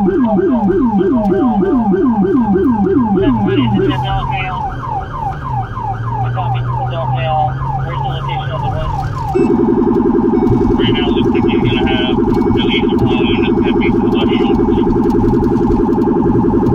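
Police car siren yelping about three times a second, with the Rumbler low-frequency siren sweeping a deep yelp underneath for the first four seconds. About nine seconds in, the siren switches to a much faster, rapid warble heard in both a high and a low tone.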